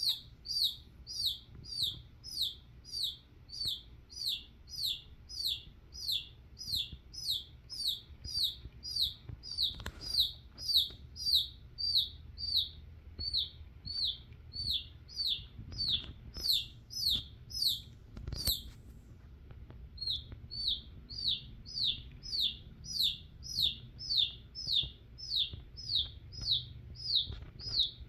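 Chick peeping steadily, about two short, high, falling peeps a second, with a brief pause about two-thirds of the way through.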